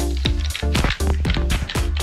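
Background music with a steady beat, about four drum hits a second, over a sustained low bass.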